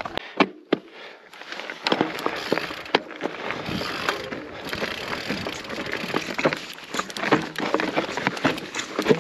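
Mountain bike riding down loose volcanic rock: tyres crunching and knocking over stones with the bike rattling, a few scattered knocks at first, then a dense, continuous clatter from about two seconds in.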